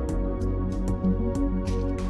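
Soft background music with layered, held tones.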